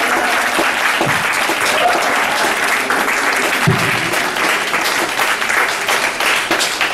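Audience applauding steadily, with a short cheer about two seconds in.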